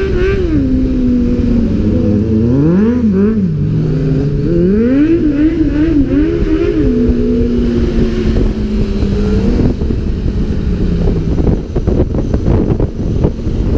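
Honda CB600F Hornet's inline-four engine revving up and easing off through the gears, with the engines of the motorcycles riding just ahead mixed in. Near the end the engine sound gives way to heavy wind buffeting on the microphone at road speed.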